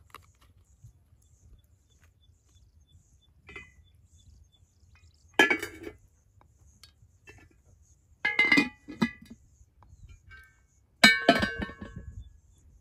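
Dishes and utensils clinking as food is dished out onto plates. There are three bursts of sharp clinks with short ringing, a few seconds apart; the last is the loudest.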